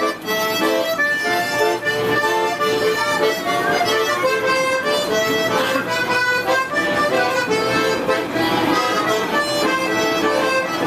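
Music: a melody of held, sustained notes over accompaniment.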